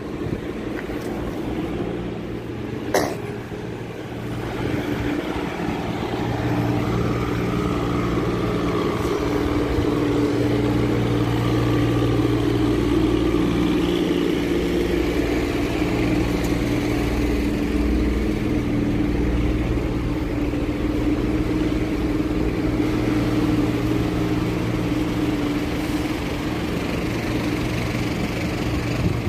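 Steady drone of an idling motor vehicle engine, with a single sharp click about three seconds in.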